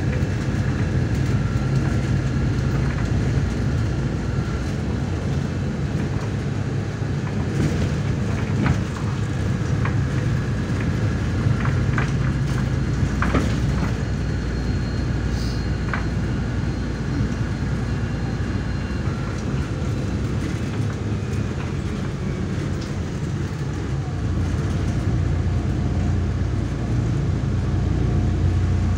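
MAZ-103.465 city bus heard from inside the passenger cabin while driving: a steady low drone of engine and road noise, with a few short rattles and knocks partway through. The drone grows a little louder near the end.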